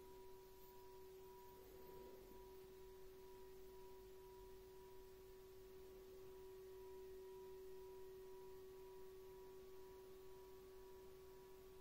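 Small hand-forged singing bowl ringing on after a strike with the smooth side of its wooden striker: a quiet, long, steady pure tone with a fainter higher overtone above it.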